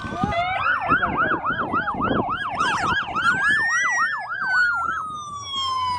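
Police motorcycle sirens on the race convoy's outriders. One siren yelps fast, about four cycles a second, and stops about five seconds in. Another wails slowly, rising to a peak about four seconds in and then falling.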